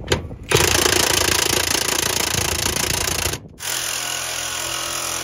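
Reciprocating saw (Sawzall) cutting through a cab mount bolt that spins instead of unscrewing. It runs steadily, stops briefly a little past halfway, then starts again.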